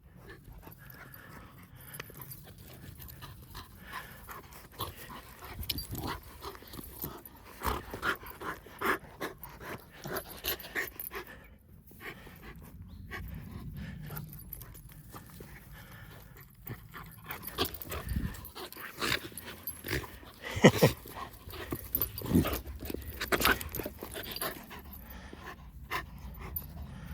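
A Kai Ken dog panting, with scattered scuffs and knocks throughout; the sharpest knock comes about two-thirds of the way through.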